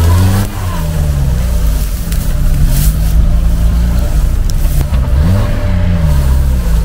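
Off-road vehicle's engine revving up and falling back several times as it tries to drive out of boggy ground where it is stuck.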